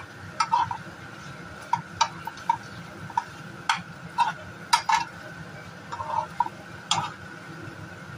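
Metal spoon stirring chunks of beef and vegetables in a thick sauce in a stone-coated nonstick wok. Irregular clinks and scrapes of the spoon against the pan, about fifteen in all.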